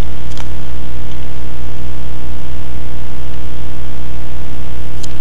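Loud, steady low hum and buzz in the recording, with a few sharp keyboard clicks, one about half a second in and a couple near the end, as a class name is typed.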